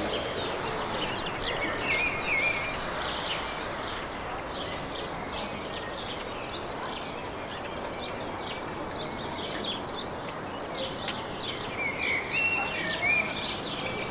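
Several birds chirping and warbling over a steady rushing background noise, with a few light clicks near the middle.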